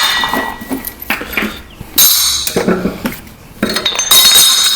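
Metal striking metal: a few sharp clanks on steel mower-deck spindle hardware, each leaving a ringing tone, the loudest about two seconds in and more around four seconds in.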